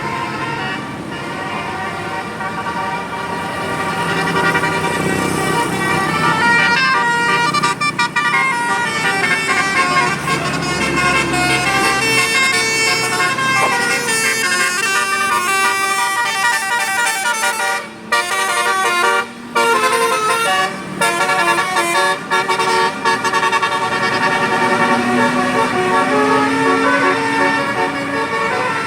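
Bus 'basuri' telolet horn, a multi-trumpet musical air horn, playing a long melody of shifting notes. It breaks off briefly twice about two-thirds of the way in, and a low tone rises near the end.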